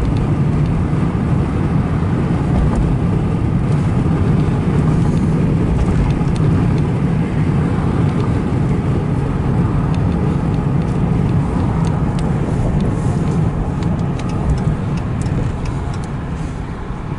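Steady road and engine noise inside a moving car, easing slightly near the end.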